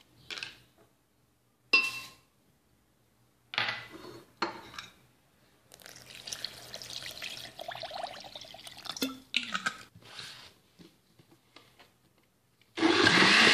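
Cold water poured into a glass blender jar over lemon, mint and sugar, with a few clinks and knocks of the jar and bowls around it. Near the end a Bomann jug blender starts up suddenly and runs at full speed, grinding the lemon and mint; this is the loudest sound.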